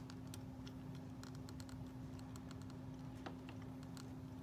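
Faint, irregular little clicks and taps of a plastic fashion doll body and its chain necklaces being handled, over a steady low hum.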